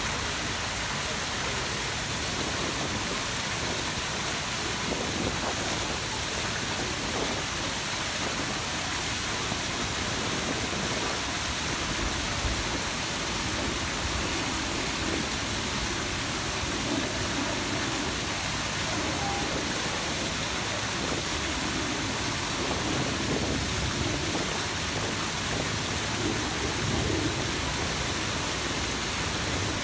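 Steady rushing and splashing of the Grand Cascade fountains: many water jets, among them the tall Samson fountain jet, falling back into the basin and pouring down the cascade steps.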